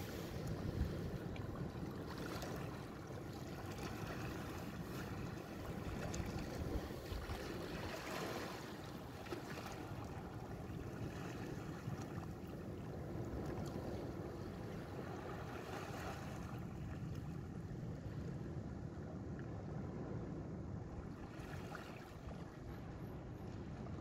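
Sea waves washing onto a beach, swelling and falling every few seconds, with wind buffeting the microphone.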